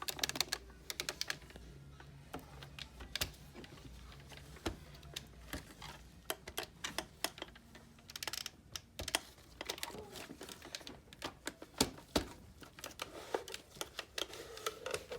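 Irregular small clicks, taps and rattles of plastic and metal parts being handled as a compartment is worked loose from a Cadillac CUE infotainment unit, some clicks coming in quick clusters.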